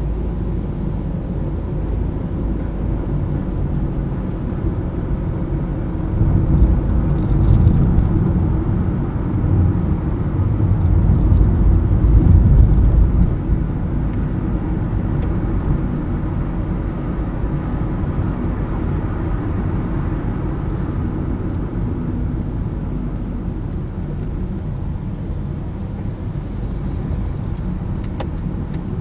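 A car being driven, its road and engine noise a steady low rumble that swells louder twice, about a quarter and two fifths of the way through. A few faint ticks come near the end.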